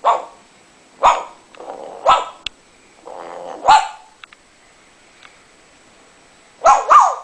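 A series of about six short dog-like barks at uneven intervals, the last two in quick succession near the end.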